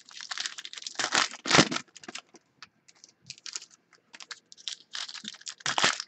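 Trading cards flipped through and slid against one another by hand: a quick run of short, papery flicks and swipes. It is busiest over the first two seconds and again near the end, with sparser flicks in between.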